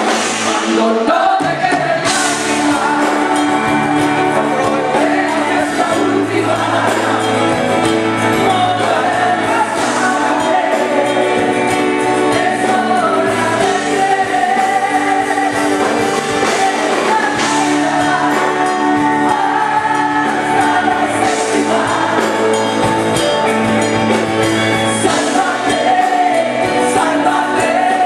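Live female lead vocal with backing singers and band, a Spanish-language pop ballad sung over an outdoor PA system.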